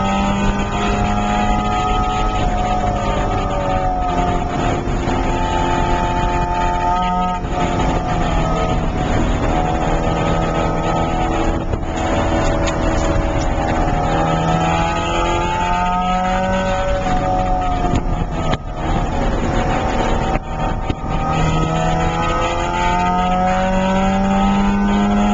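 Porsche 968's 3.0-litre inline-four engine under hard acceleration on track, heard from inside the cabin: its pitch climbs steadily as it pulls and drops back sharply about four times, over a steady rush of road and wind noise.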